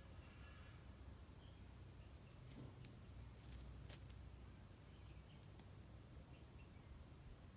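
Quiet forest ambience: faint, steady high-pitched insect chirring, which grows stronger about three seconds in.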